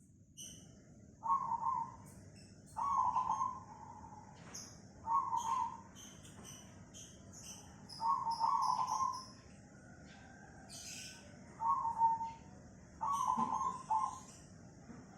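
Perkutut cemani (zebra dove) cooing: about six short phrases of quick, stuttering coos, a second or two apart. Faint high chirps of other small birds come in between.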